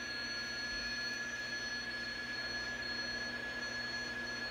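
National NC-173 shortwave receiver's audio output tuned to the 20 m PSK31 calling frequency: steady band hiss with a PSK31 digital signal heard as a steady tone.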